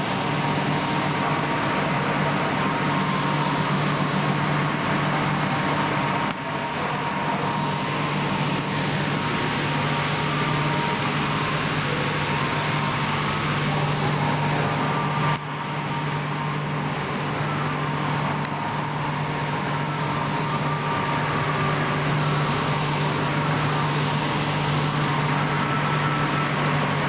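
Steady machine hum: an even hiss over a constant low drone and a faint steady high tone, dipping briefly twice.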